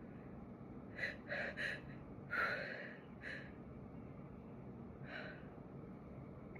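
A woman sneezing: three quick catching breaths, then one louder sneeze, followed by two softer breaths or sniffs.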